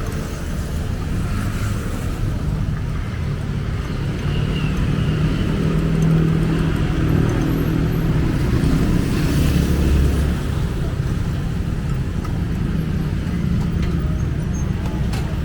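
Road traffic: vehicle engines running with a steady rumble, and one vehicle louder about nine to ten seconds in, as if passing close.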